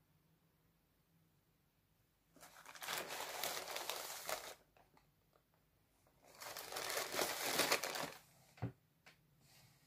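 Plastic courier mailer bags crinkling and rustling as they are handled, in two bouts of about two seconds each, followed by a short thump near the end.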